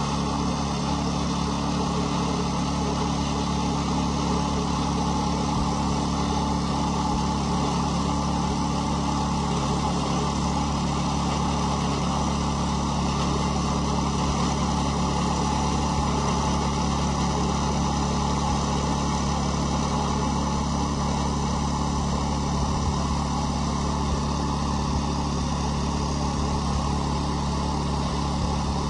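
Small engine of a portable bandsaw sawmill running at a steady pitch while its blade cuts lengthwise through a cedar log.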